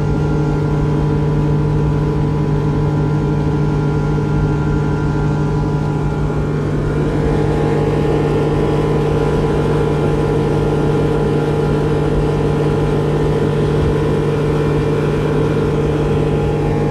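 A boat's Suzuki outboard motor running steadily at high speed, a constant drone with the rush of water from the wake.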